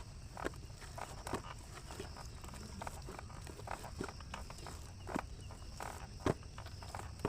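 Hands kneading soft, oiled chapati dough, making irregular soft slaps, squishes and small knocks.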